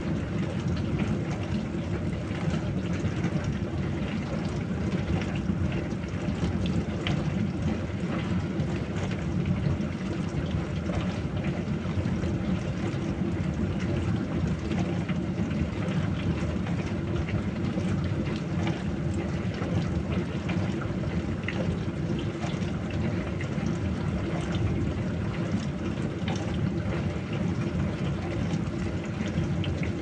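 Dishwasher running its wash cycle: a steady, low rush of water spraying and churning inside the tub, with a hum underneath and faint scattered ticks.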